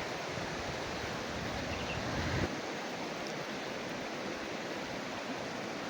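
Fast river current rushing steadily, the river swollen and strong after rain. Wind buffets the microphone with a low rumble until about two and a half seconds in.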